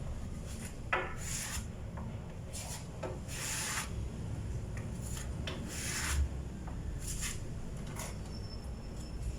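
Putty knife scraping wood putty across a wooden tabletop in short, irregular strokes about half a second long.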